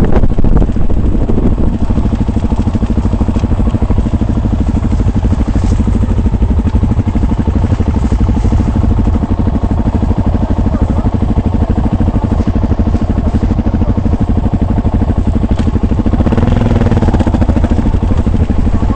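Vehicle engine running steadily under way off-road, a dense low drone with fine regular pulsing that swells briefly near the end.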